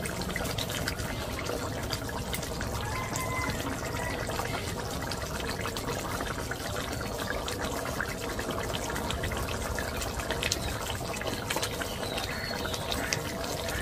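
Potato curry gravy bubbling at a boil in a kadai: a steady, even bubbling hiss with small pops scattered throughout.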